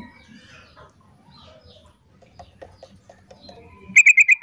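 Yellow-vented bulbul (trucukan) calling: soft scattered chirps, then about four seconds in a loud quick run of about six bubbling notes.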